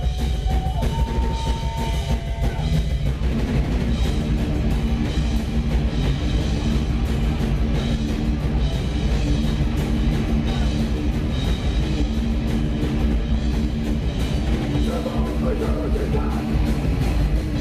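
Live rock band playing loud, distorted electric guitars, bass guitar and drum kit. A held guitar note rings for the first couple of seconds, then the band plays a steady riff with drums.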